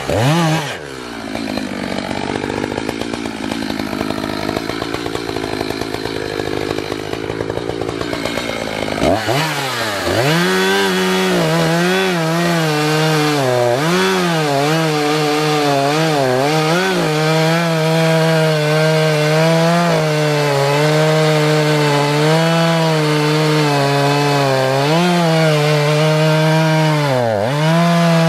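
Echo CS-590 Timber Wolf two-stroke chainsaw cutting through a white oak log at full throttle. The engine pitch dips and recovers again and again as the chain bites into the wood. About nine seconds in, the revs drop briefly and climb back as the saw goes into a fresh cut.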